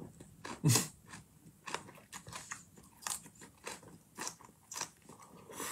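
Close-miked chewing and biting into chicken, with a crisp crunch about every half second. The loudest bite comes a little under a second in.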